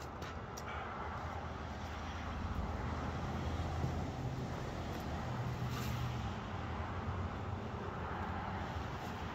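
Low engine rumble of a passing vehicle, growing louder over the first few seconds and then holding steady.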